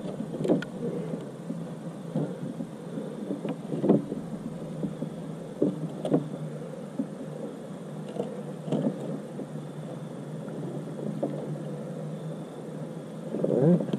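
Scattered knocks and rustles of gear being handled in a kayak, over a steady low background noise.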